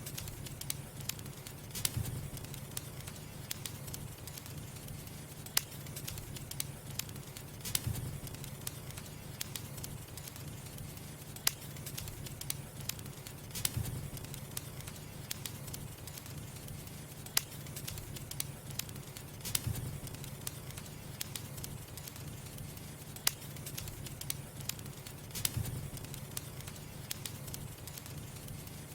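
Firewood burning, crackling with frequent sharp pops and snaps over a steady low rumble.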